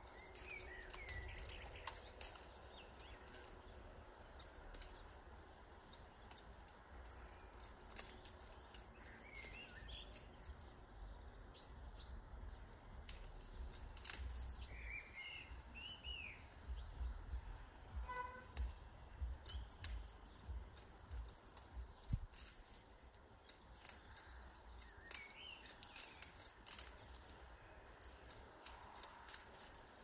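Small songbirds giving short, high chirps now and then at a garden feeder, with scattered light clicks and taps between them.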